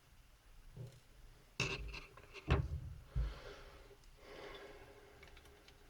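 Small parts of a laptop cooling fan being worked with a screwdriver: a few light clicks and knocks in the first half, then a soft scraping for about two seconds.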